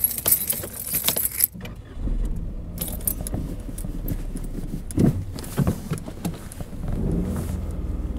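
Car keys jangling and clicking in a Peugeot's ignition lock as the key is turned, then the engine starts about two seconds in and idles steadily.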